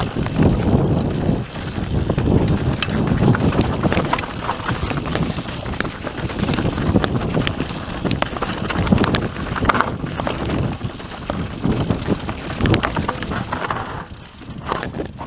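YT Industries Capra Al Comp mountain bike descending a rocky trail at speed: wind buffets the microphone over a steady low rumble, with many quick rattles and clicks as the tyres and bike run over stones and gravel.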